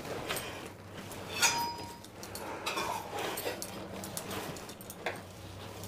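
Kitchen counter handling: scattered soft knocks and rustles, with one sharp metallic clink that rings briefly about a second and a half in.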